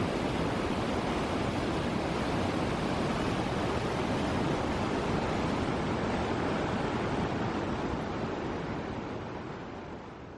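Mountain river rushing and churning over boulders in a rocky gorge, a steady even roar of white water that fades out over the last two seconds.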